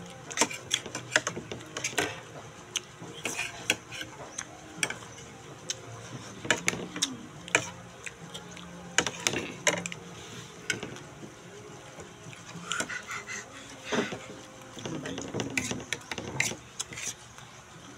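Spoon and fork clinking and scraping against a plate of rice during a meal, in quick, irregular clicks.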